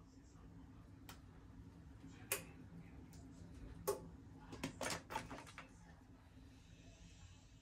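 Sharp little clicks and taps of small hand tools on phone parts: single clicks spaced a second or more apart, then a quick cluster of several about four and a half seconds in, over a faint low hum.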